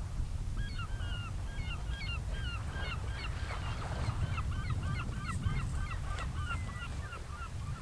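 A bird giving a long series of short, pitched calls, about three a second and evenly spaced in the second half, over a steady low wind rumble.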